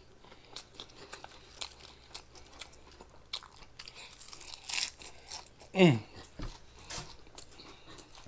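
Close-up mouth sounds of eating potato chips with a sloppy joe sandwich: many small crisp crunches and wet chewing clicks, with a louder crunch a little before five seconds. Near six seconds comes a short vocal sound that falls in pitch, the loudest thing here.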